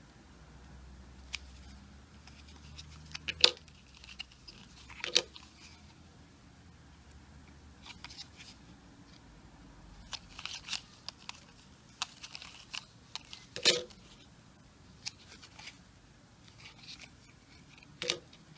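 Cardboard 2x2 coin holders being handled and shuffled in the hands: scattered light rustling and crinkling, with a few sharp clicks as the holders knock together, the loudest about three and a half, five, thirteen and a half and eighteen seconds in.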